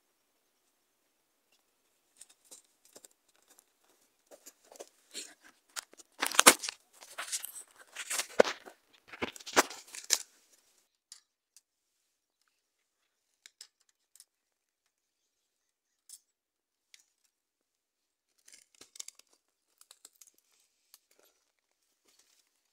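Rustling and crinkling handling noise made of irregular crackles, loudest from about six to ten seconds in, then only scattered clicks.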